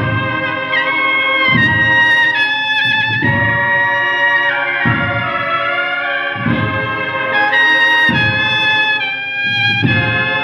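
A Holy Week cornetas y tambores band plays a slow processional march. Bugles hold long notes over a deep bass drum beat that falls about every second and a half.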